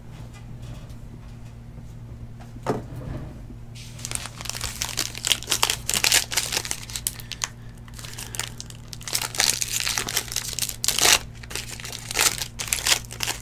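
Foil trading-card pack wrapper crinkling and tearing as it is ripped open by hand, starting about four seconds in, after a single soft knock.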